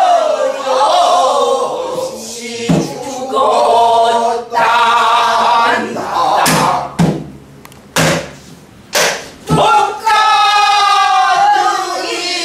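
A group of men singing pansori in unison, with sharp strikes on buk barrel drums keeping the rhythm between the sung phrases.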